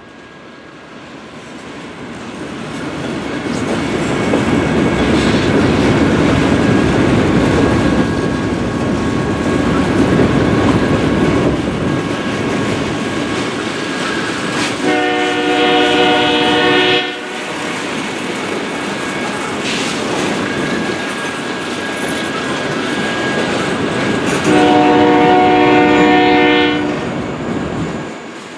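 Freight train of covered hopper cars rolling past close by: a steady rumble and clickety-clack of wheels on rail that grows louder over the first few seconds. A train air horn sounds two long blasts of about two seconds each, one about halfway through and one near the end.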